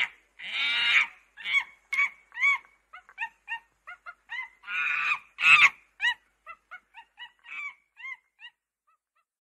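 Monkey calls: a quick run of short, high squeaks that rise and fall in pitch, broken twice by longer harsh screeches, thinning out and stopping about eight and a half seconds in.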